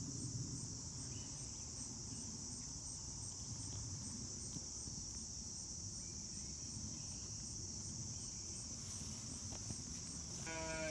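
Steady high-pitched chorus of crickets over a low outdoor rumble, with a short pitched call just before the end.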